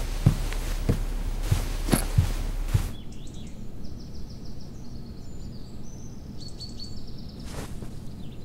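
Soft thumps on a wooden floor about every half second over a low hum. About three seconds in, this gives way to quiet meadow ambience with small birds chirping in short repeated trills.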